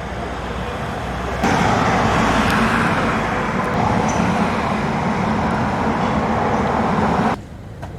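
Road traffic passing on the street: a steady rumble that swells to a louder passing vehicle about a second and a half in and cuts off suddenly near the end.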